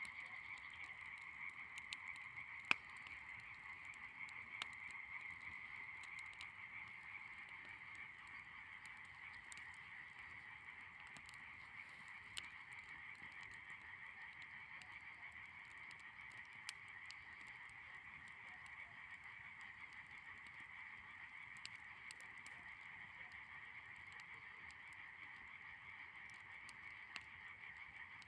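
A faint, steady chorus of frogs calling without a break, with a few sharp pops from the burning dry branches, the loudest about three seconds in.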